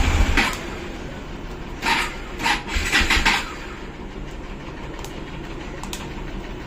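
Bajaj Dominar's single-cylinder engine just started, settling to a steady idle about half a second in, with a few short throttle blips around the middle. The body rattle that was being fixed is not heard.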